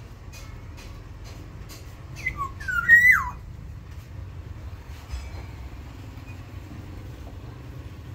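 Black-naped oriole giving a short, loud, fluty whistled phrase of a few gliding notes, rising and falling, about two to three seconds in, over a steady low rumble.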